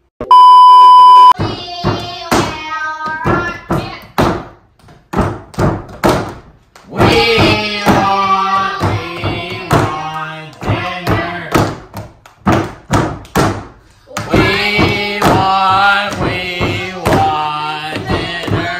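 A loud, steady electronic beep lasting about a second, then children chanting a sing-song hand-clapping rhyme, with quick claps and slaps of their hands on a wooden table keeping the beat.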